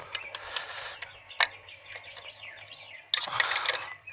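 Metal hand wrenches clicking and clinking against the brake line nuts and each other on a master cylinder, with a sharp clink about a second and a half in and a louder burst of clattering near the end.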